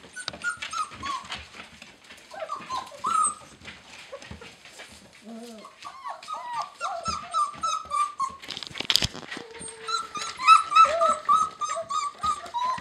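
Several German shepherd puppies whimpering and squeaking: many short, high-pitched cries in quick runs, busiest in the second half. A brief rustling noise comes about nine seconds in.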